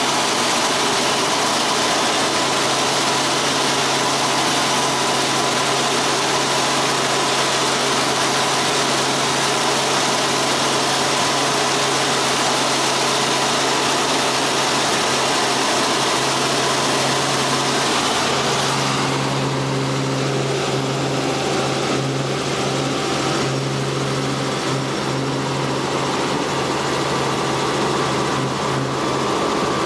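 Light helicopter's engine and rotors running steadily in flight, heard inside the cabin as a loud, even drone with a strong low hum. About two-thirds of the way through, the sound turns duller: the hiss fades and the low hum comes forward.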